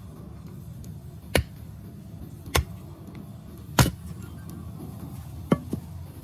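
Knife chopping on a cutting board: sharp single chops a little over a second apart, then two quick ones near the end.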